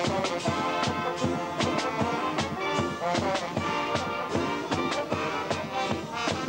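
Marching band playing: brass with a sousaphone over a steady drumbeat.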